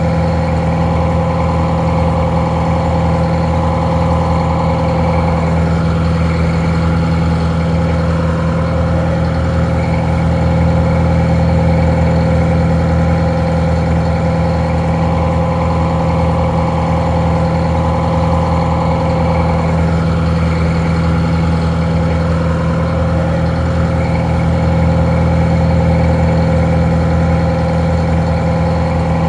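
Detroit Diesel 4-71, a two-stroke four-cylinder diesel, idling steadily with no change in speed. It sounds a little muffled.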